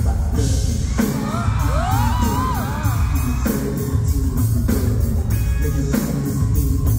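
A live song with a heavy bass beat plays loud through a concert PA. About a second in, fans scream and whoop over it for a couple of seconds.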